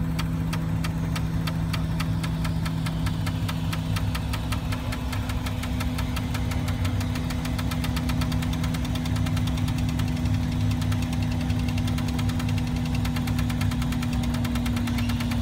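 Crane engine running steadily with a hum, under a fast, regular ticking that grows quicker over several seconds.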